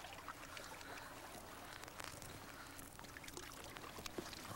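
Faint lake water lapping and trickling against a stone breakwater, with a few scattered faint clicks.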